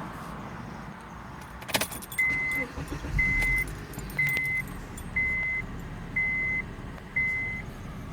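Keys rattle briefly, then a 2006 Honda Accord's dashboard warning chime beeps six times, evenly, about once a second, with the ignition switched on.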